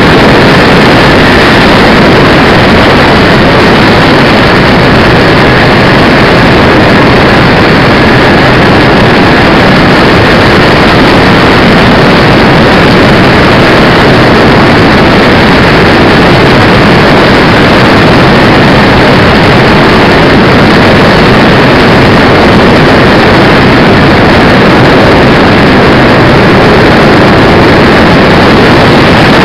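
Radio-control DC-6B scale model's engines and propellers in flight, picked up by the onboard camera: a steady dense drone with wind rush and a faint steady whine, loud enough to overload the recording.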